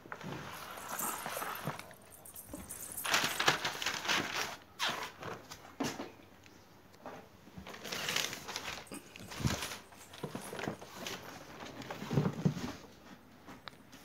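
Handling noise of a polypropylene trolley suitcase: the fabric lining rustling and crinkling under the hands, in irregular bursts with a few sharp knocks against the shell.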